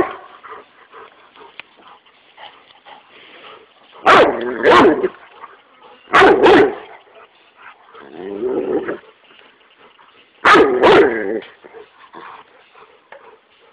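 Dog barking in short bursts, mostly pairs of barks: about four, six and ten and a half seconds in, with a quieter, longer call in between.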